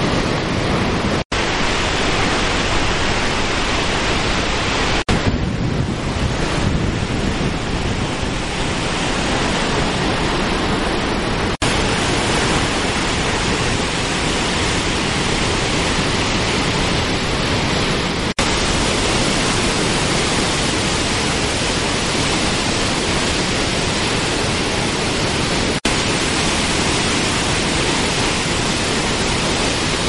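Merced River waterfall and whitewater cascades rushing over boulders: a loud, steady rush of falling and churning water. It cuts out for an instant about five times.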